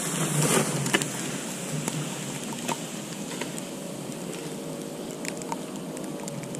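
Outdoor ambience in falling snow: a steady hiss with scattered faint ticks and clicks. A faint low hum comes in about four seconds in.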